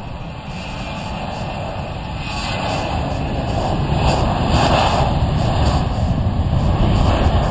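Airbus A320's twin turbofan engines at high power as the airliner rolls down the runway past the listener, a steady rushing jet noise that grows louder and peaks in the second half.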